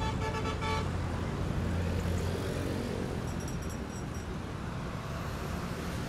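Road traffic: vehicle engines running, with a short horn toot lasting under a second at the start.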